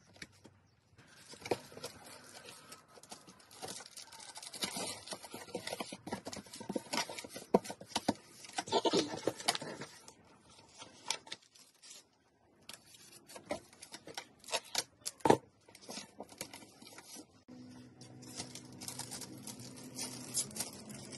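Packaging being handled while unboxing: wrapping rustling, crinkling and tearing, with scattered clicks and knocks of items and a cardboard box. A low steady hum joins in the last few seconds.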